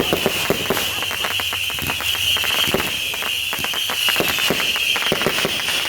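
Consumer fireworks going off in a rapid, irregular stream of small pops and crackles, with no single big bang standing out. Under them runs a steady high-pitched hiss.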